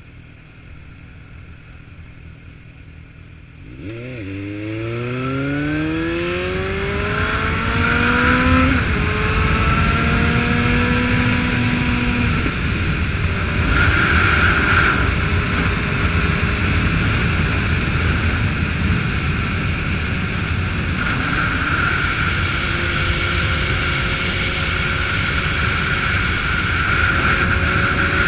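Motorcycle engine pulling hard about four seconds in, its pitch climbing and dropping back at each upshift, then running steadily at cruising speed under heavy wind rush on the microphone.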